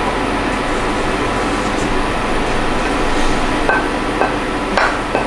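Vegan omelette mixture frying in a pan, a steady hiss. In the last second and a half a metal utensil knocks sharply on the cookware a few times, each knock ringing briefly.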